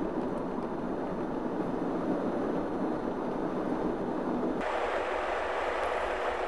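Steady road and tyre noise of a vehicle driving on wet pavement, heard from inside the cab. About four and a half seconds in the sound changes suddenly, losing its deep rumble and turning to a brighter hiss.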